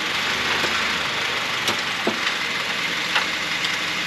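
Honda Fit four-cylinder engine running at idle in drive with the front wheels turning freely, and a few sharp clicks heard from underneath the car during a hunt for a rattle that the owner has been told may be a loose heat shield.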